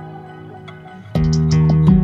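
Relaxing instrumental background music with plucked guitar. A held chord fades away, then new notes are plucked a little over halfway through.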